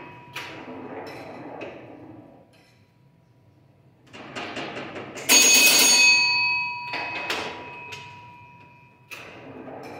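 1953 Williams Grand Champion electromechanical pinball machine in play: bursts of mechanical clattering with its bell ringing. After a short lull, the loudest ringing comes about five seconds in and fades over a second or so, with more clicks and rings near seven and nine seconds.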